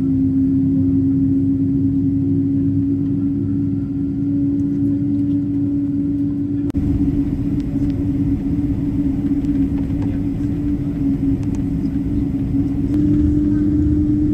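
Steady jet cabin noise inside a Boeing 777 on the ground: a continuous rumble under a strong, even hum. The sound breaks off sharply about halfway, where one take is cut to the next while taxiing, and the hum steps slightly higher near the end.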